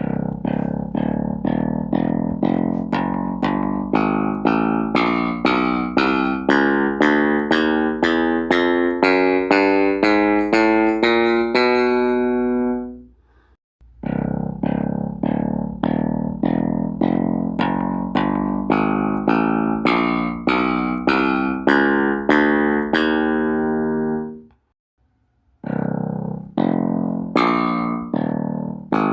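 Bass pedal notes played one after another, about two a second, each struck sharply and decaying, climbing step by step in pitch. The run stops briefly about 13 seconds in and again about 24 seconds in, then starts again.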